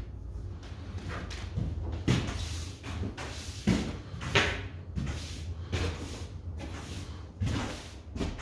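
A few irregular knocks and thuds over a low steady hum.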